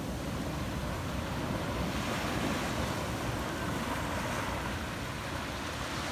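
Small sea waves breaking and washing up a sandy beach, a steady rush of surf.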